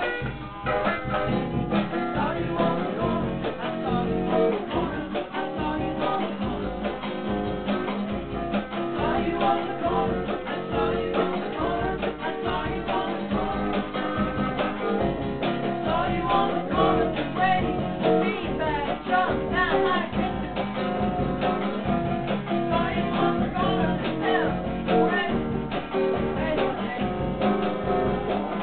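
Acoustic guitar strummed steadily, with a second guitar playing along: a small band performing a song live.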